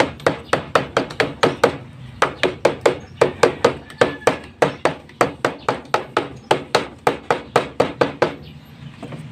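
Rapid, even hammer blows, about four a second, pounding a new rubber tire down onto a band saw wheel so the freshly contact-cemented rubber presses on and sticks. The blows pause briefly about two seconds in and stop shortly before the end.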